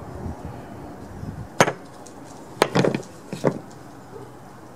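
Knocks and clatters of a chainsaw and loose parts being handled on a workbench: one sharp click about a second and a half in, then a short run of knocks around the three-second mark.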